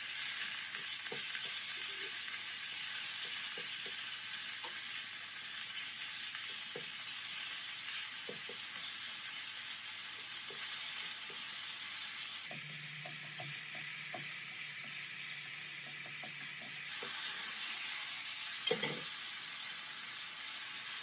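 Thinly sliced pork stir-frying in oil in a non-stick frying pan: a steady sizzle, with light clicks of wooden chopsticks against the pan as the meat is broken apart.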